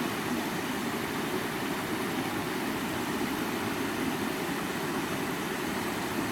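Stream water running steadily over rocks, an even rushing noise with a full low-middle body and no breaks.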